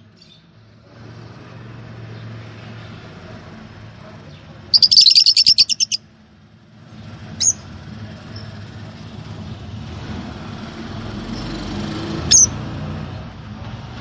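Lovebirds calling: a loud, rapid, high-pitched chattering burst lasting about a second near the middle, then single sharp chirps about a second and a half later and again near the end, over a steady low background rumble.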